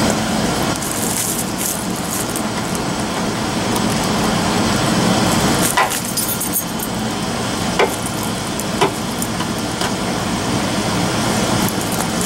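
A few short, sharp plastic clicks as a multi-tool works at the tail-light wiring connector, over a steady rushing background noise.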